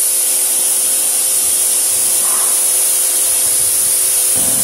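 Pressure washer jet spraying water onto the side of a car: a loud, steady hiss with a faint steady hum underneath.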